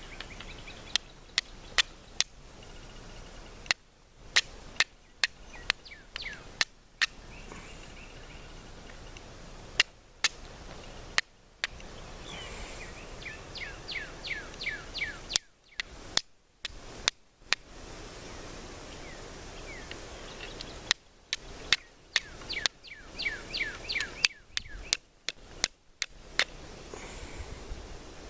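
A knife's steel struck against flint again and again to throw sparks onto char cloth: sharp clicking strikes in irregular bursts of a few at a time. Twice a bird calls a rapid series of falling notes.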